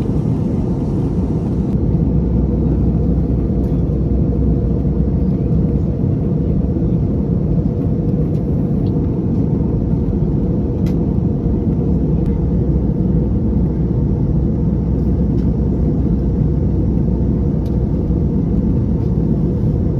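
Steady low rumble of a jet airliner heard from inside the cabin, the engines and airflow droning evenly throughout.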